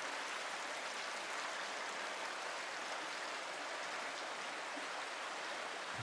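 Shallow stream flowing over stones in a narrow canyon: a steady rush of water.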